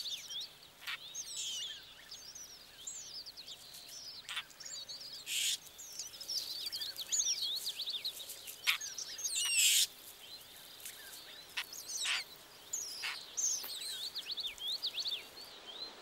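Jay nestlings begging at the nest: many short, high chirps that rise and fall in pitch, broken by a few brief harsh bursts.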